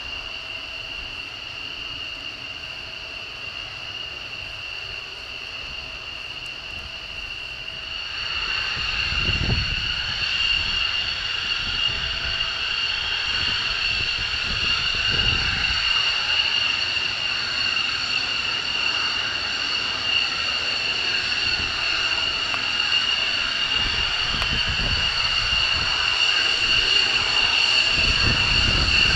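F-16 fighter's jet engine taxiing, a steady high whine over a rushing hiss that grows louder as the jet comes closer. It cuts in about eight seconds in, after a quieter stretch of steady engine noise.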